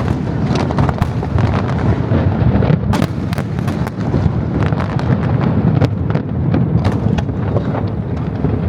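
Fireworks display going off: a continuous low rumble of aerial shell bursts with many sharp cracks and pops layered over it.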